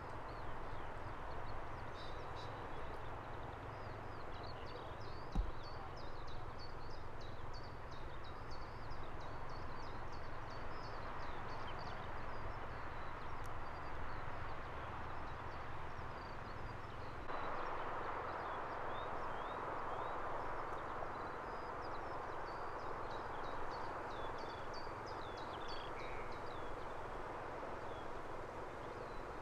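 Songbirds chirp throughout over the steady distant whine and rush of a Gulfstream G600's jet engines on the runway. A little over halfway through, the engine noise steps up abruptly as power comes on for the takeoff. A single sharp knock comes about five seconds in.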